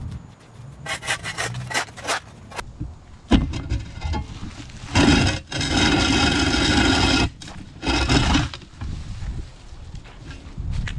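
Shovel blade scraping across the ground in several long strokes, the longest about two seconds, after a few quick taps near the start.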